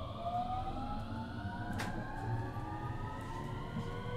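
Mitsubishi IGBT VVVF inverter and traction motors of a JR West 223 series 2000 electric train whining, several tones rising slowly together in pitch as the train accelerates, over a low running rumble. A sharp click about two seconds in.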